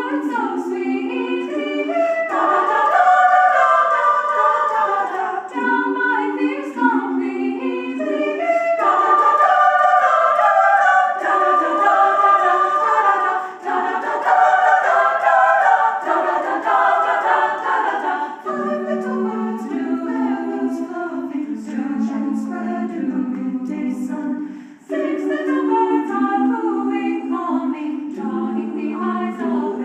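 Mixed choir singing a cappella, several voice parts in harmony, holding long chords with short breaks between phrases.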